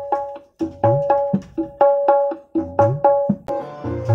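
Music led by a tabla-like hand drum: ringing pitched strokes about three a second, mixed with low bass strokes that bend upward in pitch. About three and a half seconds in, a sustained melody comes in over the drum.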